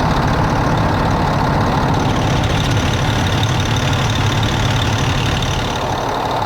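Detroit Diesel Series 60 inline-six diesel engine idling steadily and loudly with the hood open, its air compressor running while its output is tested on a gauge.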